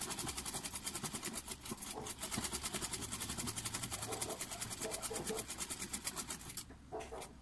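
Domestic sewing machine stitching fabric at a fast, even rate of about nine or ten stitches a second, stopping about a second before the end, followed by a couple of light clicks.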